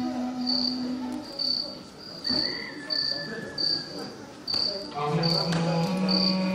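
High, evenly spaced chirps, a little more than one a second, like a cricket's, over background music: a held note that stops about a second in and a new, lower held note that comes in about five seconds in.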